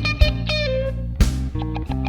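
Blues band music between sung lines: electric guitar playing over a steady bass and drum beat.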